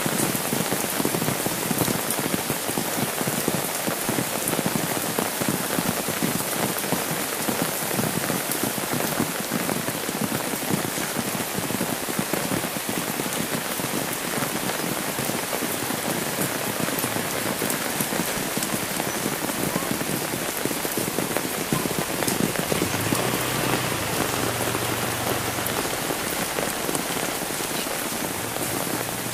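Steady rain falling on an umbrella held overhead and on a wet, puddled road, with the close tick of drops hitting the umbrella.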